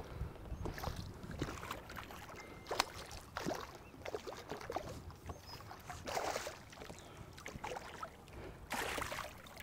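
Faint, irregular splashing of a hooked smallmouth bass thrashing at the surface beside the boat, over a steady low rush of wind and water.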